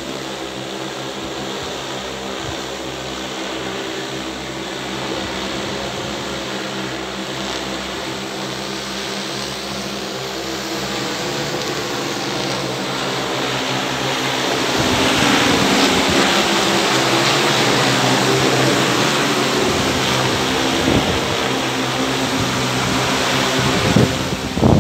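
Large multirotor spray drone flying overhead: a steady propeller hum with several pitches at once, growing louder about fifteen seconds in.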